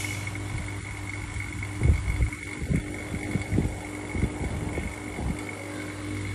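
Y106 screen laminating press running through a timed press cycle: a steady low machine hum with a faint high whine, and irregular low thumps from about two seconds in.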